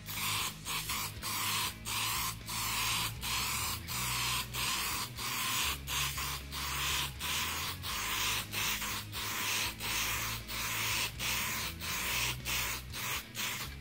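Aerosol can of Rust-Oleum clear acrylic lacquer spraying in many short hissing bursts, a little under two a second, as a light clear coat goes over a painted canvas.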